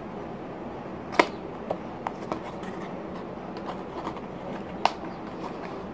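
Cardboard retail box being handled and opened, giving a few sharp clicks and taps: the loudest about a second in, several small ones just after, and another strong one near the end, over a steady background noise.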